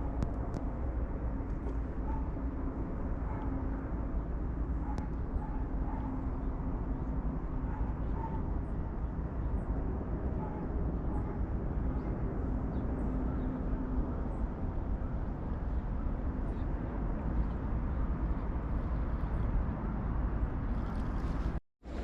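Outdoor ambience: a steady low rumble with a faint steady hum over it that fades out about two-thirds of the way through. There are a few faint short chirps, and the sound drops out abruptly for a moment near the end.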